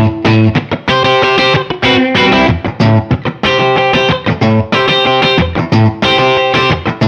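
Electric guitar, a Gibson Les Paul with PAF-style humbucker pickups, played through an amp: a riff of chords and single notes with short breaks between phrases.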